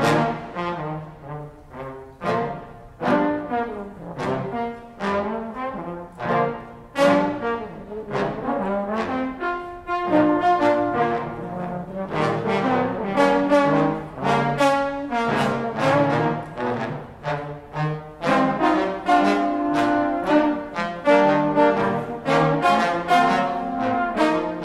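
Trombone ensemble of six playing a swing piece in close harmony, with many short, accented notes.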